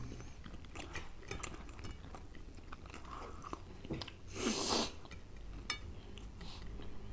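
Close-up chewing and small crunches of someone eating deep-fried pork slices fried so long they have turned hard, with scattered small clicks. One short, louder rushing noise about four and a half seconds in.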